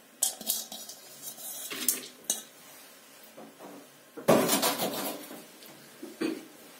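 Soaked kidney beans being put into an aluminium pressure cooker, clinking and rattling against the metal pot: a few scattered clinks, then a louder clatter about four seconds in.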